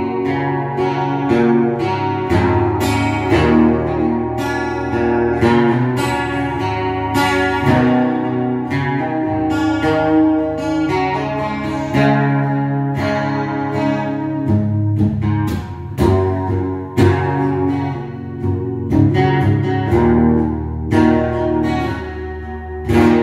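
Gibson Hummingbird acoustic guitar strummed, a steady run of full ringing chords.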